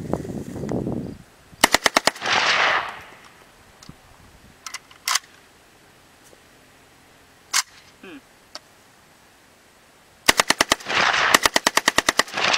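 AK-47 rifle firing on full auto: a short burst of about seven rounds about two seconds in, two single shots in the middle, then two more rapid bursts near the end, each burst trailing off in a loud rumble.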